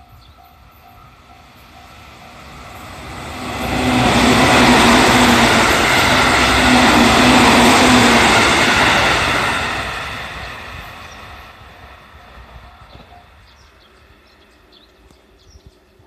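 JR Central electric multiple unit passing a level crossing: its wheels and motors build to a loud rush about four seconds in, hold with a steady low hum, and die away after about ten seconds. The crossing's warning bell rings at the start and faintly again as the train moves off.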